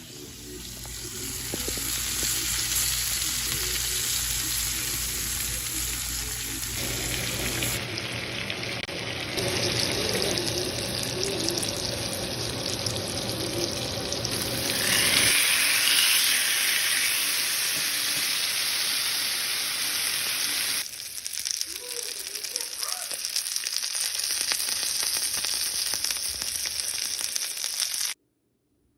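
Steak sizzling as it fries: a steady hiss that shifts in level a few times, loudest about halfway through, and cuts off suddenly near the end.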